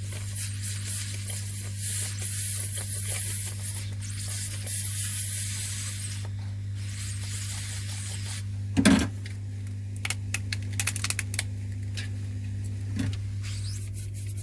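Steady airy hiss over a constant low electrical hum, with one sharp click about nine seconds in and a quick run of small clicks after it. The clicks come from tools prying a heat-softened, glued phone screen loose.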